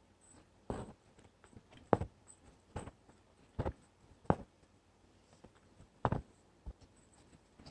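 Embroidery needle piercing the fabric and stranded cotton floss being drawn through it while working an outline stitch. About seven short scratchy sounds come at uneven intervals of roughly a second.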